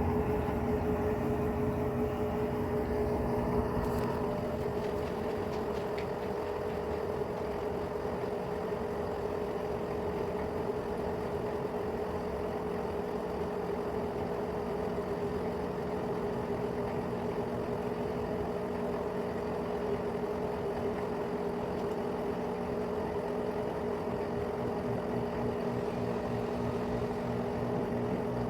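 Electrolux Turbo Economia 15 kg top-loading washing machine running through its wash cycle, its motor giving a steady hum with one strong pitch. A faint click about four seconds in, after which the hum settles slightly quieter.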